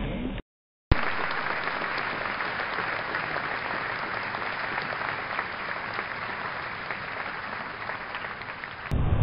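Audience applauding: dense, even clapping that starts abruptly about a second in after a brief silence and is cut off abruptly just before the end.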